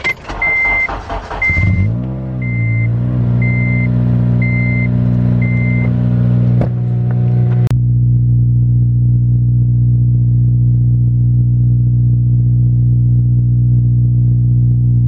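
Cold start of an 8th-gen Honda Civic Si's 2.0-litre four-cylinder through a Skunk2 70 mm exhaust. The engine is cranked, catches about two seconds in, flares and wavers, then settles into a steady fast cold idle. A chime beeps six times about once a second over the start, and a door shuts with a sharp thump a little past halfway.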